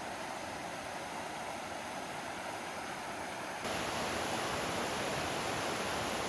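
Steady outdoor rushing noise with no distinct events, such as running water or wind. It steps up in loudness abruptly about three and a half seconds in.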